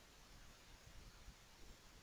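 Near silence: faint recording hiss.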